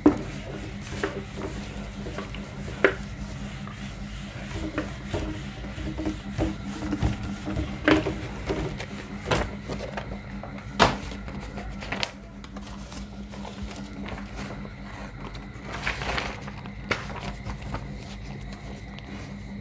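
Whiteboard duster rubbing across a whiteboard as the board is wiped clean, with scattered sharp knocks from handling, over a steady low hum.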